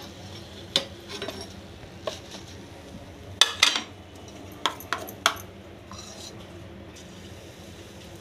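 Steel spoon clinking and knocking against the frying pan and plate as fried pakoras are lifted out of the oil and set down, about ten sharp clinks in small groups, the loudest cluster about three and a half seconds in.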